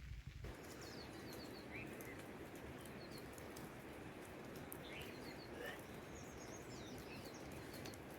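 Steady hiss of rainfall, starting suddenly about half a second in, with small birds chirping briefly here and there over it.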